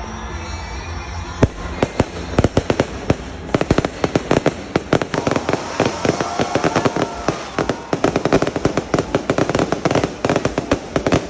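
Fireworks going off: a rapid string of sharp bangs and crackles that starts about a second and a half in and keeps going, several a second, almost to the end.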